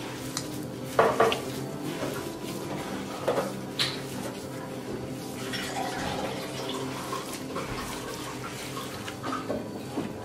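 Hands kneading a wet mix of minced meat, bulgur and chopped onion for soup meatballs in a glass baking dish. The mixture squelches, and the hands knock and clink against the glass, with sharp knocks about a second in and again near four seconds.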